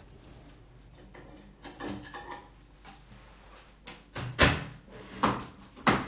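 Three loud, sharp knocks in the second half, each under a second apart, over a quiet room.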